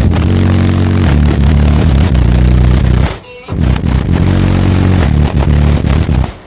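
Bank of nine CT Sounds EXO subwoofers, powered by three B2 Audio M1 amplifiers, playing deep bass notes of a song at very high volume, heavily distorted on the recording. The bass cuts out briefly about three seconds in and again at the end.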